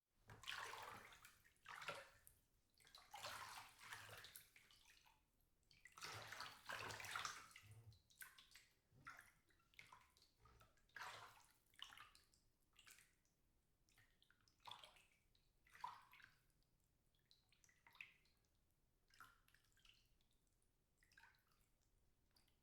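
Water sloshing and swishing in a bathtub as it is stirred. It comes in irregular swells, larger and longer over the first several seconds, then lighter splashes about once a second.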